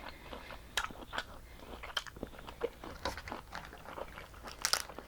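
Close-miked eating of boiled crab: chewing with irregular crunching and cracking clicks, a louder cluster of cracks near the end.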